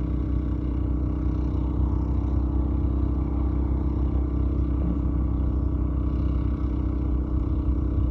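A steady low engine hum, unchanging in pitch and level throughout.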